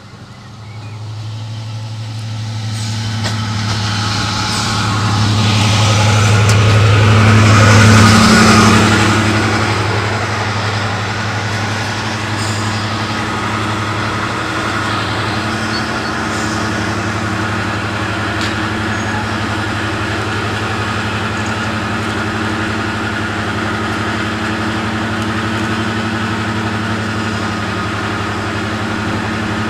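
Class 55 Deltic diesel locomotive with twin Napier Deltic two-stroke engines, growing louder as it draws in close past, loudest about eight seconds in. It then settles to a steady idle at a standstill.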